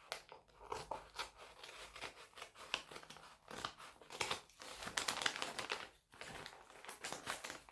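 Crinkling, rustling and tearing of postal packaging as a delivered package is opened, in irregular crackles with a couple of short pauses.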